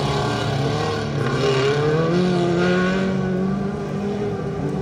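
Several small-displacement stock-car engines (modified cars up to 1800 cc) racing together, their overlapping engine notes rising and falling in pitch as the drivers accelerate and lift off.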